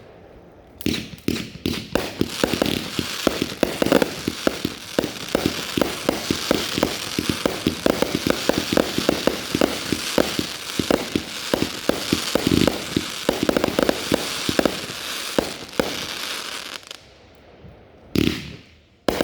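Consumer fireworks cake firing a rapid barrage of launches and bursting reports with crackle for about fifteen seconds, then stopping; after a short pause another brief burst of bangs goes off near the end.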